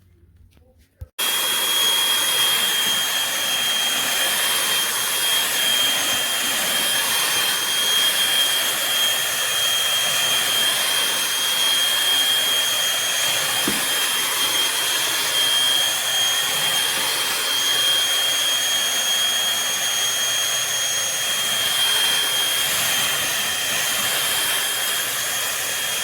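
Eureka corded stick vacuum cleaner switched on about a second in, its motor then running steadily with a high-pitched whine.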